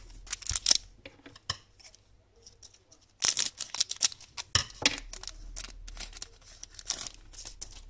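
Crackly rustling and crinkling of a foil trading-card pack being taken from its box and opened, in sharp irregular bursts, loudest about three seconds in.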